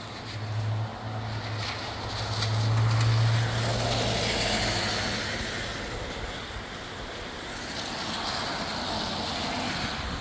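Road traffic going by: a vehicle's low engine hum swells to its loudest about three seconds in and fades, with tyre noise rising and falling again as more traffic passes.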